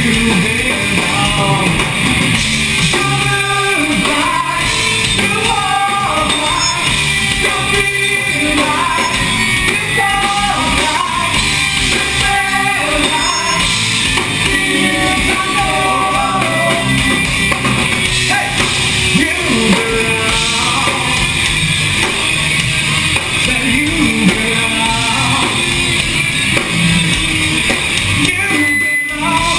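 Live rock band playing loud: drum kit, electric guitars and a singing voice. The music drops out for an instant near the end.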